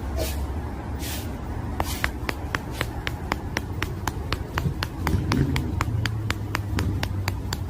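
A car's indicator flasher ticking evenly, about four clicks a second, starting about two seconds in, over a low steady engine hum. A short hiss comes just before the ticking starts.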